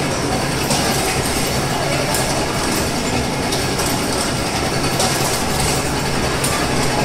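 INCA60 automatic packer and CVA 20 vacuum module running, a steady mechanical clatter over a constant low hum, with faint short hissing clicks about every second and a half.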